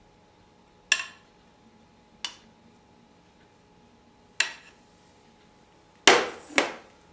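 Metal tongs clicking against a plate three times as boiled sausages are laid on it, then two louder knocks near the end as the plate is set down on the wooden counter.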